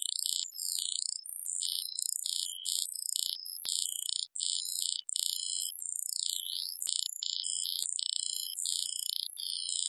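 Synthesized spectrogram-image audio: a high-pitched, shifting electronic noise built so that its spectrogram spells out a hidden text message ('…you can read this. I'll be hiding Easter eggs like this in all my future videos').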